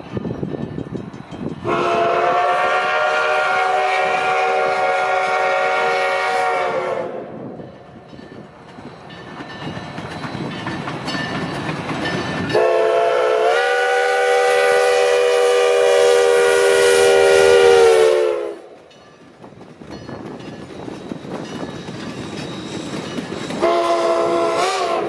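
Steam locomotive whistle sounding a grade-crossing signal: two long blasts, each sliding down in pitch as it cuts off, then a short warbling blast near the end. A train rumbling past fills the gaps between.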